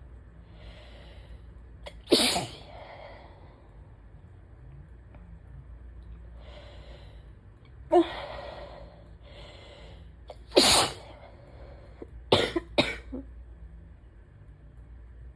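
A woman sneezing again and again during an allergy attack: breathy inhales build up before each sneeze, with several loud sneezes a few seconds apart and a quick pair near the end.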